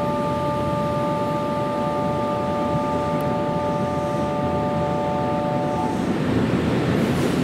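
A steady electronic chord of several tones, held for about six seconds and then cut off, over the constant rushing din of a railway station platform.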